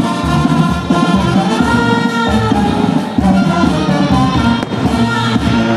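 Loud Latin-style band music with brass over a steady beat.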